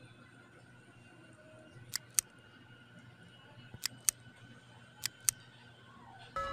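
Mouse-click sound effects from a subscribe-button animation: three quick double clicks, followed right at the end by a notification-bell ding.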